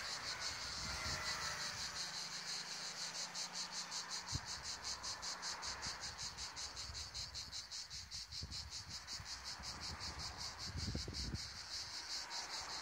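A chorus of cicadas in the trees, which the uploader takes for moths, singing a high-pitched buzzing song that pulses evenly about five times a second.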